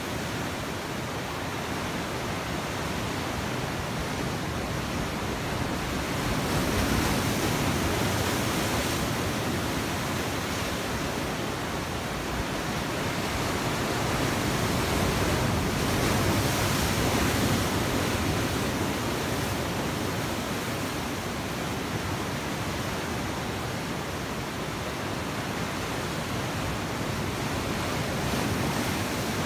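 Sea waves breaking over rocks: a continuous rush of surf and foaming white water, swelling louder twice as larger waves break.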